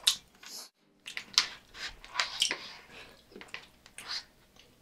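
Chopsticks stirring and scraping through gyudon in a paper takeout bowl: a string of irregular short clicks and soft, squishy scrapes.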